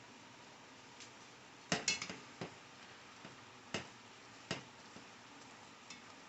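Metal cookware clinking: a quick run of knocks from a pot, lid or cooking utensil about two seconds in, then two single clinks and a faint one near the end.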